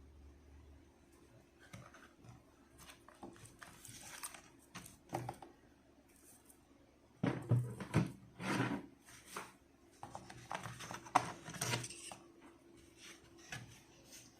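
Product packaging being handled and opened by hand: irregular scrapes, rustles and light knocks, heaviest for about two seconds midway and again shortly after.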